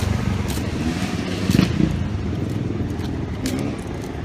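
City street traffic: a steady low rumble of passing vehicles, louder briefly about one and a half seconds in, with a few sharp clicks.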